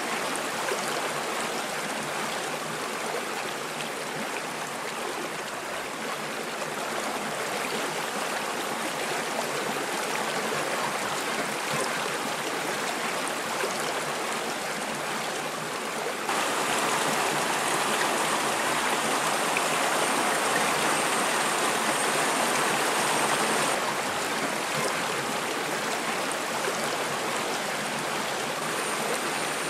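Shallow river water flowing over rocks, a steady rushing stream. It gets louder for several seconds past the middle, then drops back.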